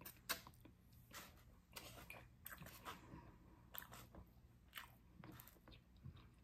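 A person chewing food with their mouth close to the microphone: faint, irregular small clicks and crunches of eating.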